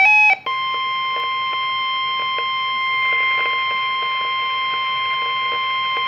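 NOAA Weather Radio warning alarm tone, one steady unbroken tone, played through a Reecom weather alert radio's speaker. It signals that a warning-level alert, here a tornado warning, is about to be read. It cuts in about half a second in, just after the radio's own pulsing alert beeps stop.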